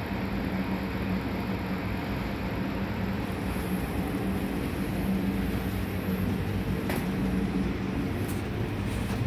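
2005 Chrysler 300's 5.7-litre Hemi V8 idling steadily.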